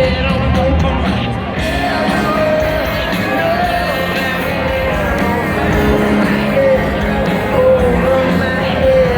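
Live rock band playing, with a lead singer holding long sung notes over the full band.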